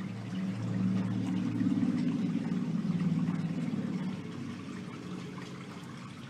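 A low motor hum that swells about half a second in, holds for about three seconds, then fades away.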